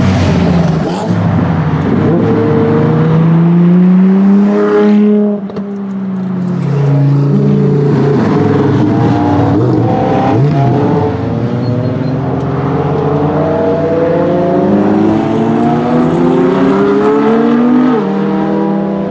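Ferrari LaFerrari Aperta's 6.3-litre V12 running loud under acceleration, its pitch climbing and then falling back several times, with a sharp drop about five seconds in.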